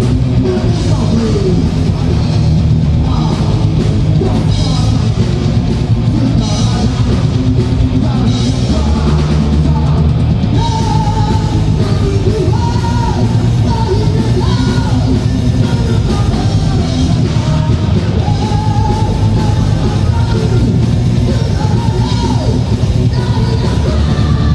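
A rock band playing live at full volume: distorted electric guitars, bass and drum kit, with a singer's voice over them, steady and continuous.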